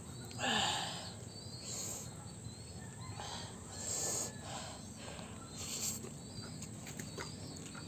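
Faint mouth sounds of a man eating very spicy instant noodles: about five short breathy slurps and breaths, a second or so apart, over a faint steady background.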